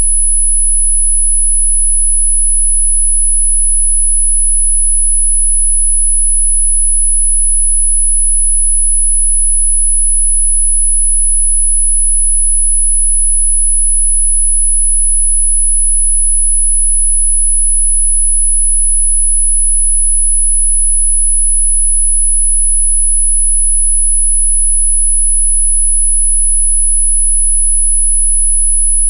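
A single very high-pitched pure sine tone, held perfectly steady with no change in pitch or loudness, with a faint low hum underneath. It is a generated test-like tone offered as a 'healing frequency' for hiccups.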